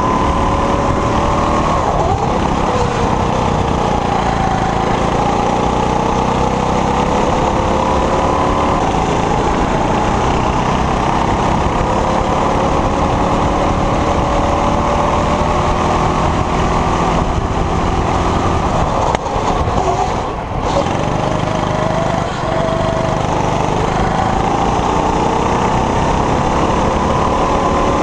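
Honda-powered rental go-kart's four-stroke engine running flat out on track, its pitch climbing as the kart accelerates and sagging as it lifts off for turns. About two-thirds of the way through the engine note briefly dips before picking up again.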